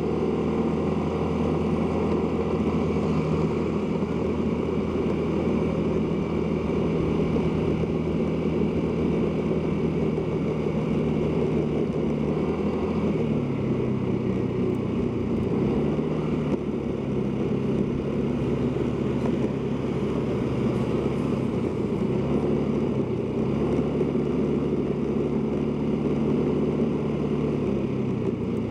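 Motorcycle engine running while riding, with steady road and wind noise. The engine note steps down and back up a few times, about halfway through and again near the end, as speed changes.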